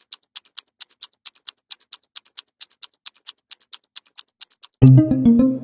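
Quick clock-like ticking sound effect, about five ticks a second. Near the end a loud musical chord hits and rings down.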